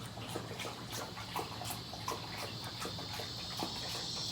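Wet licking sounds from an animal's long tongue: short, soft smacking clicks, irregular, about two or three a second.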